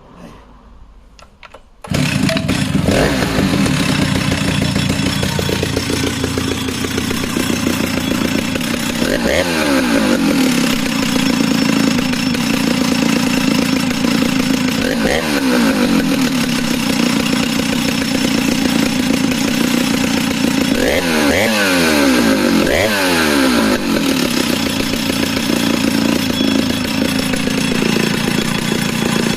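Stihl 076 AVE two-stroke chainsaw bursting into life about two seconds in after a short lull, then idling steadily. The throttle is blipped four times, each a sharp rev up that falls back to idle.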